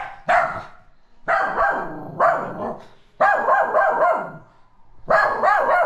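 White Spitz-type pet dog barking in loud, repeated bursts, about half a dozen with short pauses between them.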